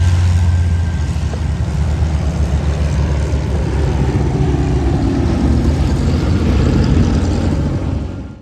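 Loud, steady engine noise with a deep drone, cutting off abruptly at the end.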